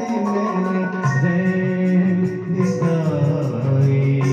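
Live Hindi song with accompaniment: a male voice holding long notes over keyboard, with tabla and dholak strokes keeping time.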